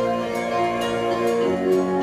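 Doom metal band playing: sustained chords over drums, with cymbal hits about twice a second and a chord change about one and a half seconds in, picked up through a phone's microphone.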